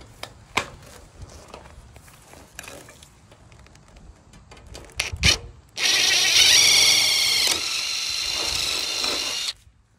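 Handling clicks and knocks of a copper gutter end cap being fitted, then a cordless power tool's motor running with a steady whine for nearly four seconds at the end cap's rivet holes, dropping to a lower level halfway through and stopping suddenly.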